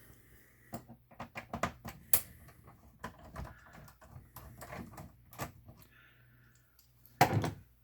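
Irregular light clicks and taps of a plastic computer case being handled as it is opened, with one louder knock about seven seconds in.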